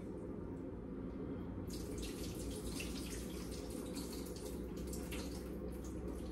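Kitchen tap water starting to run about two seconds in, pouring and splashing steadily into the sink over a steady low hum.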